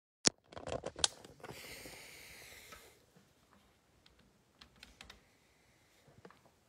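Handling noise from the recording phone as it is set in place: a sharp click, a quick run of clicks and taps, then a high rustling hiss for about a second and a half. A few faint scattered ticks follow.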